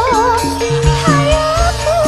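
Live campursari music: a woman singing a held, wavering melody into a microphone over drum strokes and a steady bass line.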